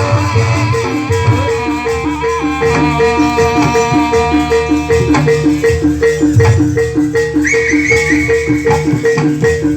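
Traditional Javanese folk ensemble music with a fast, even, two-note pattern on tuned percussion over drums, and a higher melody line entering near the end.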